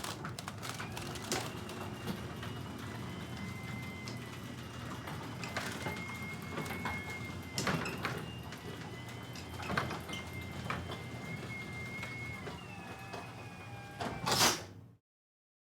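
Garage door closing: a steady rumble with a thin high squeal and a few clunks during the travel, ending with a loud thud as the door meets the floor about 14.5 seconds in.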